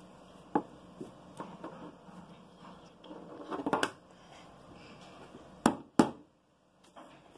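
Small poster-paint jars being handled and set down on a paper-covered table: scattered light knocks and clicks, a few together about three and a half seconds in and the two sharpest close together near six seconds.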